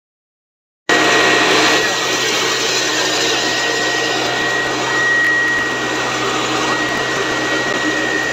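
Electric flour-mill machinery running steadily: a loud, even whirring noise with a constant high whine, starting abruptly about a second in.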